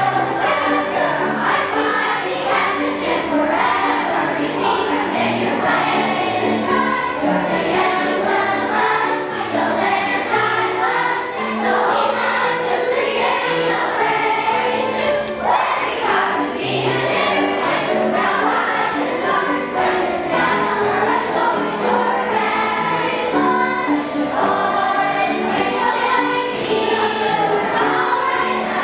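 Children's choir singing a patriotic song together, steadily through the whole stretch.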